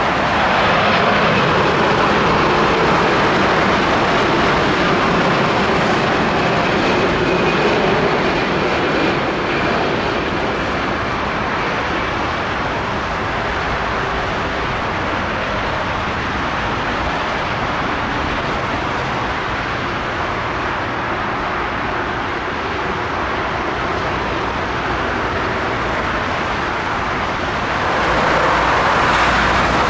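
Jet engines of a Boeing 787-8 airliner on landing approach. The roar is loudest at the start, with a faint high whine, then settles into a steady rumble. The noise swells again near the end.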